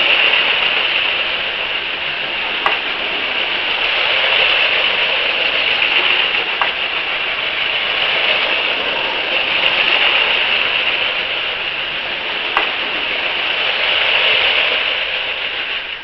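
Lego City 60051 trains running on plastic track: a steady whirring of the train motors and wheels that swells and fades every few seconds as the trains pass, with three single clicks.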